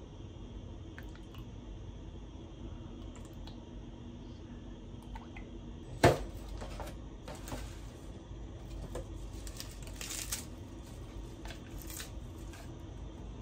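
Quiet kitchen handling sounds: one sharp plastic snap about six seconds in as a plastic clamshell tub of baby greens is opened, then light crackling and rustling of the plastic and of leafy greens being picked out by hand.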